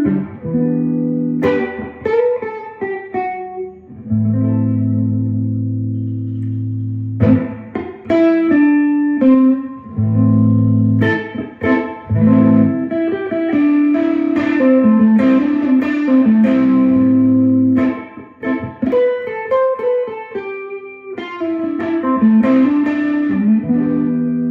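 1960s Klira Triumphator electric guitar with Schaller pickups being played: picked single notes and strummed chords, with one chord left ringing for about three seconds early in the passage and a few notes bent in pitch later on.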